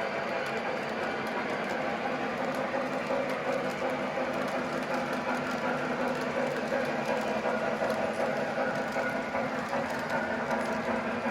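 O gauge model Big Boy locomotive running along the layout track: a steady mechanical running noise from its motor and wheels on the rails, with a constant low hum.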